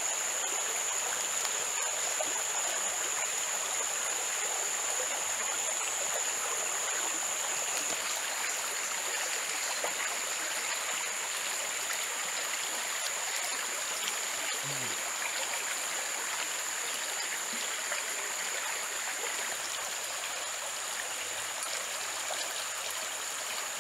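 A stream running steadily, with a steady high-pitched tone over it. About two-thirds of the way through there is one brief, low, falling vocal sound.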